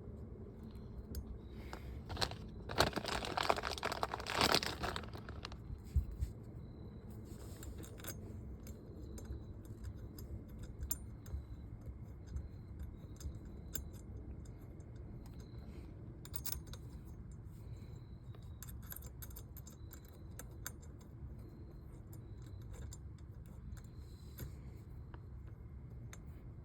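Small metal hardware and tools being handled: a jangling, rustling burst about three seconds in, a single knock a little later, then scattered light clicks and taps.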